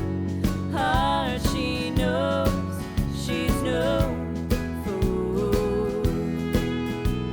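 Upbeat background music with a steady beat, about two beats a second, under a sliding melody line.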